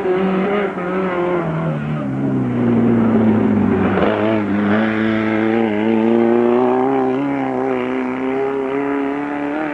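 Race car engine running hard on a hillclimb, its pitch sliding down about two seconds in, then holding fairly steady with small rises and dips.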